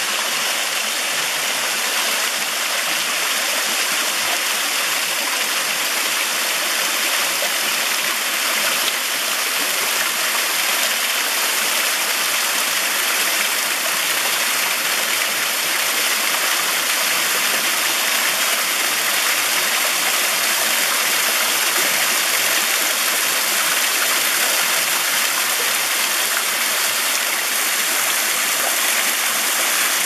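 A small waterfall on a mountain stream, water spilling over mossy rocks and splashing into a shallow pool as a steady, even rush.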